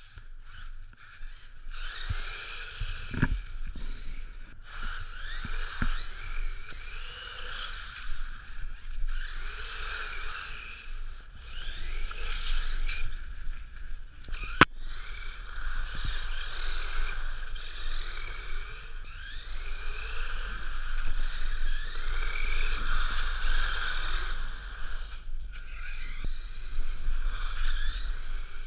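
Electric motor of a Himoto radio-controlled dune buggy whining, its pitch rising and falling again and again as it speeds up and slows down, over a steady rushing noise and low rumble. One sharp click about halfway through.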